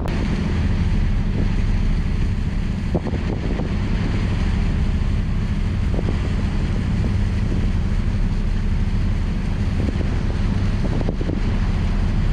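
River cruise ship's engines running with a steady low drone, with wind buffeting the microphone over it.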